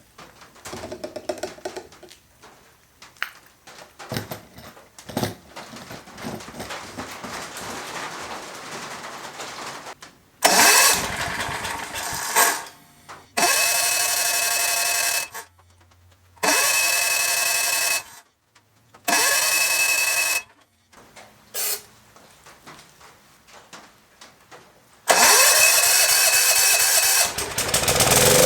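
Generac 7000EXL portable generator engine starting and running, heard in five short stretches of a few seconds each that start and stop abruptly, after a stretch of faint handling sounds.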